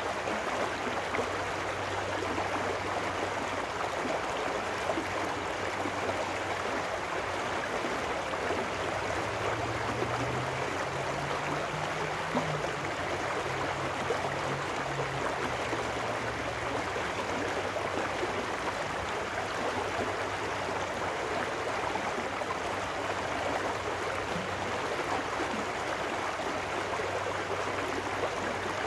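Small trout stream rushing steadily over rocks as it spills out of a concrete culvert, a constant splashing riffle.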